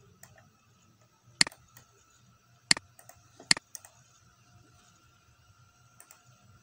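Three sharp computer mouse clicks, at about a second and a half, under three seconds and about three and a half seconds in, over a faint steady hum.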